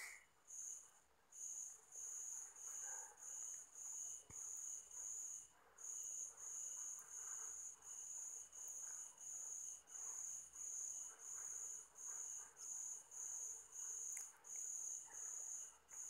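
A cricket chirping steadily, a high-pitched pulsed trill repeating about twice a second. Under it are faint scratchy strokes of a paintbrush on a plastic bottle.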